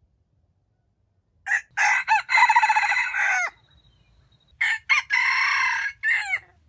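Red junglefowl rooster crowing twice, about three seconds apart. Each crow opens with a couple of short notes, then holds a call that drops away at the end.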